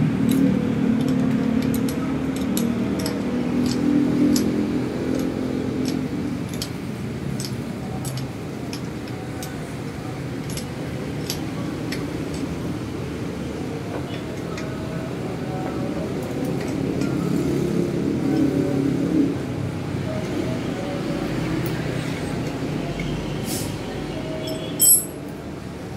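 Light metallic clinks and ticks of hand tools working on a bicycle's front fork and brake, over a steady low background hum, with one short, sharp clatter near the end.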